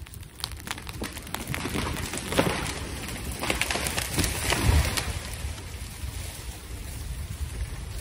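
A felled hollow-cored tree going over: wood cracking and snapping in a dense crackle as the hinge gives and the crown tears through branches and brush, ending in a heavy low thud as the trunk hits the ground about four and a half seconds in.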